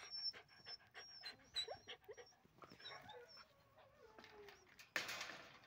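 Puppies whimpering faintly: thin, high wavering whines in the first couple of seconds, then a lower whine that falls in pitch. A brief rustle comes about five seconds in.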